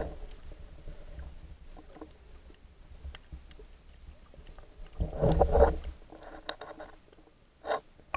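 Muffled underwater sound picked up by a camera below the surface: a low steady rumble of moving water with scattered faint clicks, a louder swell of noise lasting about a second some five seconds in, and a short burst near the end.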